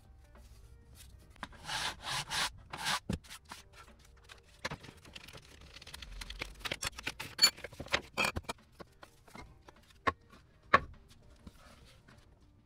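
Laser-cut wooden wing parts being worked by hand: a few rubbing strokes about two seconds in, then a scatter of small clicks and taps, the sharpest near the middle and about ten seconds in.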